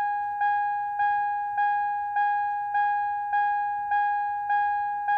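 Car warning chime: a single electronic bell-like tone repeating evenly, about one and a half to two dings a second, each fading before the next.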